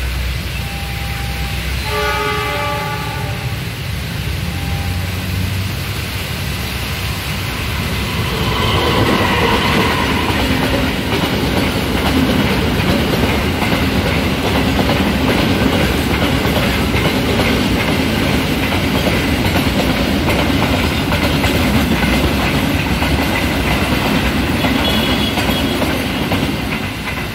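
A train horn sounds briefly with a few short tones in the first seconds. From about eight seconds in, a train of fuel tank wagons passes close by, and its wheels running over the rails make a loud, steady rumble.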